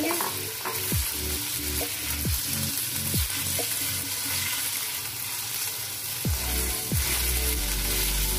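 Raw chicken pieces frying in hot oil in a non-stick wok, sizzling steadily as a spatula stirs and turns them.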